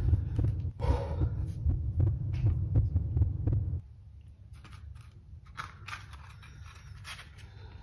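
A low throbbing rumble that cuts off suddenly a little before halfway. Then soft clicks and rustles as a cigarette and a small paper item are handled.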